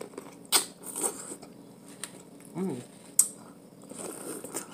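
Biting and chewing corn on the cob: a few sharp crisp bites and mouth sounds, with a short low vocal sound about two and a half seconds in.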